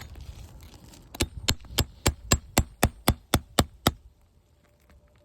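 Hammer tapping lightly, eleven quick evenly spaced strikes, working a roofing nail out of an asphalt shingle tab.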